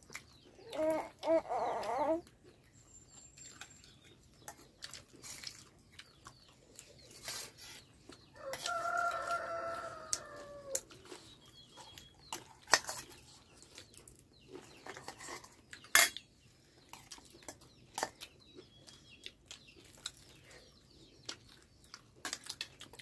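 Chickens calling: a short call about a second in, then a rooster crowing once for about two and a half seconds near the middle. Scattered sharp clicks and knocks sound in between.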